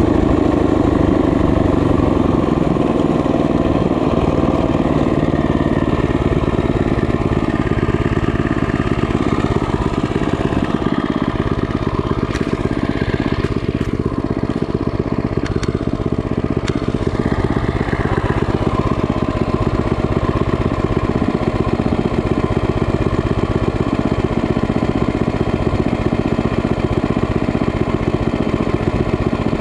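Small motorbike engine running at a steady speed.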